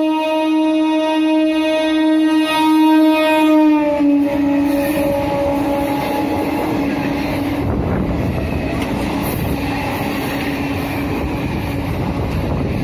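Indian Railways EMU local train sounding one long horn blast as it approaches at speed; the pitch drops slightly as the front passes, about four seconds in. The horn fades into the steady rumble and wheel clatter of the electric multiple-unit coaches running through without stopping.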